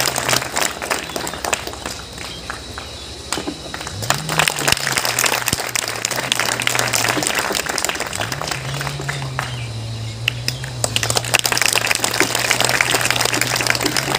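Audience applauding, a dense patter of hand claps, over a steady low hum.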